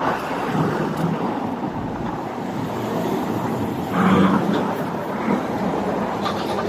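Street traffic noise: a steady hum of passing vehicles, with a brief louder burst, a call or a voice, about four seconds in.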